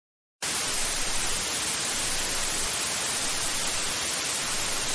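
Steady hiss of white-noise static, like a dead broadcast signal, cutting in abruptly about half a second in and holding at an even level.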